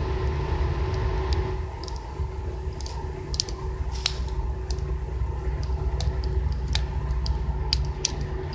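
Wood campfire crackling, with irregular sharp pops a few times a second over a steady low rumble.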